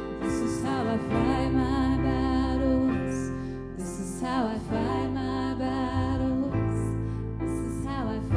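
Slow worship music: a singer's voice over sustained keyboard chords and a low bass line.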